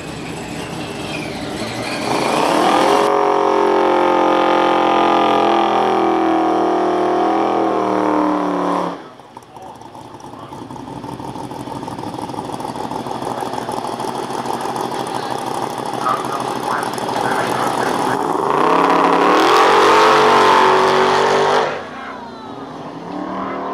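Drag cars launching at full throttle. A turbocharged Audi Quattro's engine pulls hard for several seconds and then cuts off abruptly. After the cut, a hot-rodded Ford Popular's engine builds on the line and launches with a rising pitch near the end.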